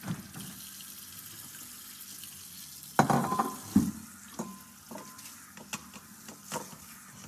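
Kitchen work: a steady hiss, then about three seconds in a loud clatter of a metal bowl and utensils, followed by scattered clinks and knocks at the counter.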